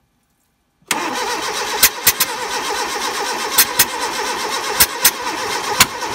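Fiat carburettor petrol engine starting about a second in and turning over unevenly, with repeated sharp pops spaced irregularly, roughly every half second to a second. The pops are the backfiring through the carburettor on starting that the owner complains of.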